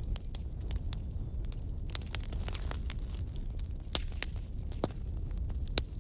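Spatula scraping and knocking against a metal kadai while chicken pieces with onion and tomato are stirred, irregular clicks over a steady low hum.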